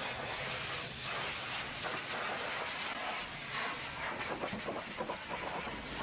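Hot-water pressure washer jet spraying onto a truck wheel and trailer frame: a steady hissing spray, with splashing that grows more uneven in the second half as the jet moves over the metal.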